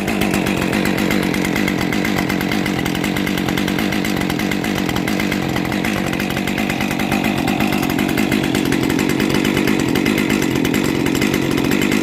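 Husqvarna 550 XP Mark II two-stroke chainsaw engine idling steadily at an even pitch.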